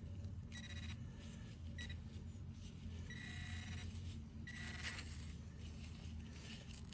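Garrett Pro Pointer pinpointer buzzing in four short bursts as it is swept through loose soil, alerting to a buried metal target.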